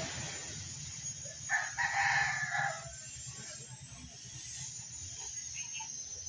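A rooster crows once, starting about a second and a half in and lasting just over a second.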